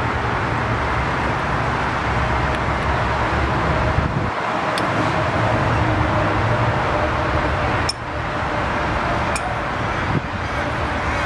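Steady outdoor background noise, a low rumble under a hiss, with a few faint clicks.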